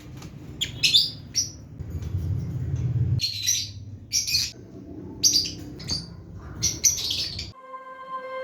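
Lovebirds chirping in several short clusters of sharp, high-pitched calls over a low steady rumble. Soft music comes in near the end.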